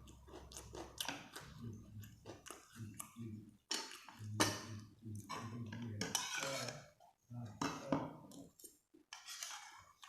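Eating at close range: irregular chewing and mouth sounds, with utensils clicking against a plate or bowl.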